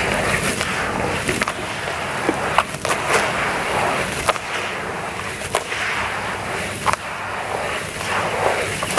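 Hands squishing and crunching gritty dry crumbles into thick mud in a plastic tub: a continuous wet, gritty churning, with sharp crackles of grit here and there.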